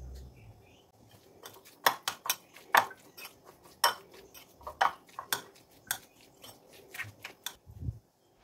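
Metal spoon clinking and scraping against a ceramic bowl while mixing a moist tuna and sweet corn filling, a quick, irregular run of clicks that starts about a second and a half in.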